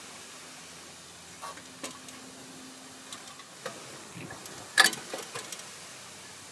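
Recoil-starter housing of a Honda GX390 engine being handled and seated back onto the engine: a few light clicks and knocks, the loudest a sharp clack about five seconds in followed by two or three smaller ones.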